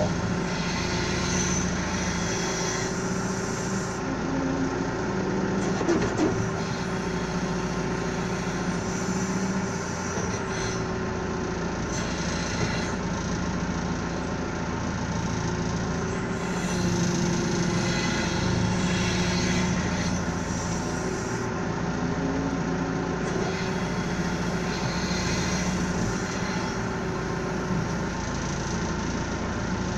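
Backhoe engine running steadily while the machine digs a hole, its note shifting slightly as the hydraulics take load.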